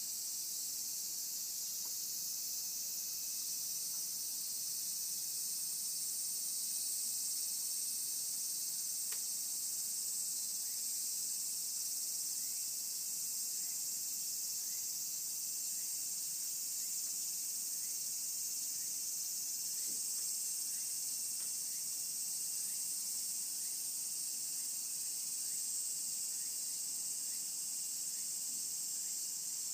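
Steady high-pitched chorus of summer insects: a dense, shrill buzzing that never breaks.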